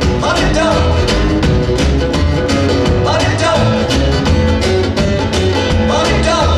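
A live rockabilly band playing: acoustic guitar, upright bass and a small drum kit keeping a steady beat, with singing.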